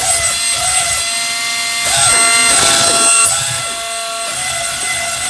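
Small electric motor of a remote-control toy whining steadily, with short rising-and-falling tones recurring over it and a louder stretch about two seconds in.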